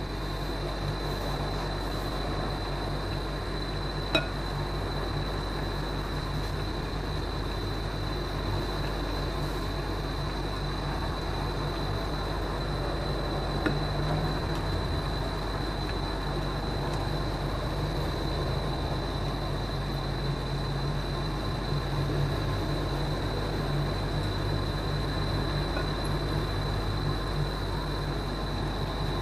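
Induction cooker running under a pan of tom yum broth: a steady hum and rumble with a thin, steady high-pitched whine. Two light clicks, about four seconds in and about fourteen seconds in.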